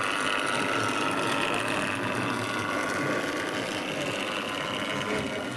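A 009-gauge model locomotive running along the track, its small electric motor giving a steady high whine.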